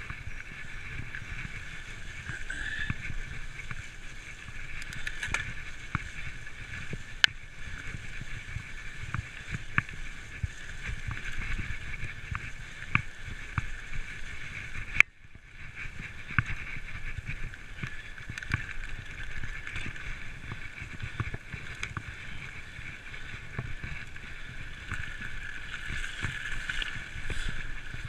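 Full-suspension mountain bike ridden fast over a leaf-covered dirt trail, heard from a camera carried on the bike or rider: a steady rumble and rattle of tyres and frame over rough ground, with wind on the microphone and frequent small knocks and clicks. Two sharper knocks stand out, about seven and fifteen seconds in.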